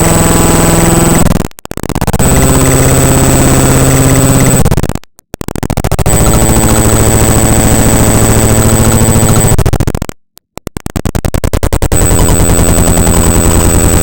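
Raw bytes of the Windows 10 SnippingTool.exe program file played back as audio: loud, harsh buzzing tones and noise that change texture in blocks every few seconds, over a steady high whine. It cuts out briefly three times.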